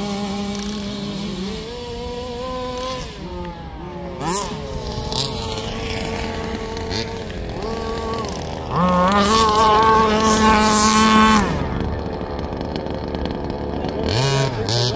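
Small two-stroke petrol engines of RC Baja buggies revving up and down as the cars race, more than one engine heard at once. The engines are loudest as a buggy passes close, from about nine to eleven seconds in.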